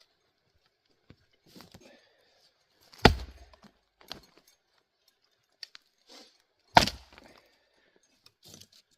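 Two hard knocks of wood being struck, about four seconds apart, with light clicks and handling noise between.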